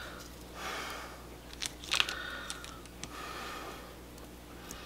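Quiet kitchen handling: a few soft clicks and rustles as chunks of butter are picked up and dropped onto a seasoned roast in a crock pot.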